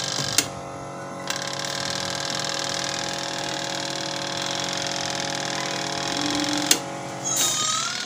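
Twin-tub washing machine's mechanical timer knob being turned: a mechanical whirr over a steady hum, with sharp clicks about half a second in, at about a second, and near the end. The wash motor does not start, a sign of a fault in the motor itself.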